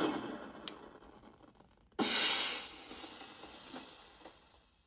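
Simulated truck engine sound from an ESP32 RC sound controller through a small speaker, dying away as the engine is shut off, then about two seconds in a sudden sharp air hiss of the truck's parking brake being set, fading out over about two seconds.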